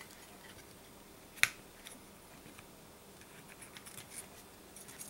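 Faint, scattered clicks and light taps of small tools working at an MCP355 pump's circuit board during desoldering, with one sharp click about a second and a half in.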